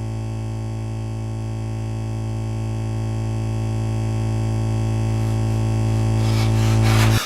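A steady electric buzzing drone, a low hum with many overtones, swelling slowly louder. Crackling noise builds in over the last second, and the drone cuts off suddenly at the end.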